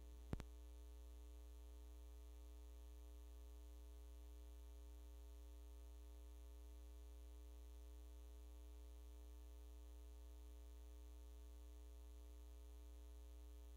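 Near silence with a steady electrical mains hum on the audio feed, and one sharp click just after the start.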